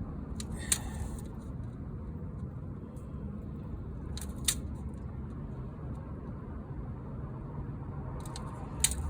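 Three short sharp clicks a few seconds apart over a steady low rumble: a flathead screwdriver pressing new spline and screen mesh into the groove of a camper window screen frame.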